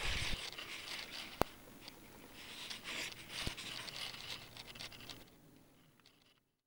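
Footsteps swishing and scuffing through grass, with two sharp clicks, fading away near the end.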